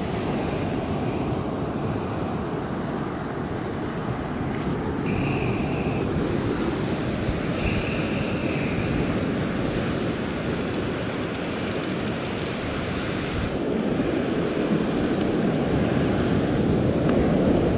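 Wind buffeting the microphone over steady surf breaking on the beach, with two short high tones about five and eight seconds in.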